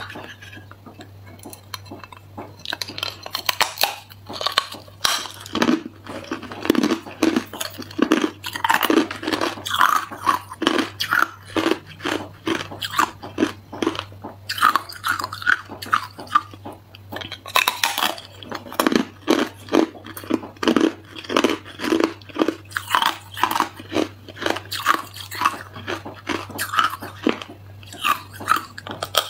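Hard ice being bitten and chewed: a quieter opening, then from about three seconds in a dense run of sharp crunches and cracks as pieces are bitten off and ground between the teeth.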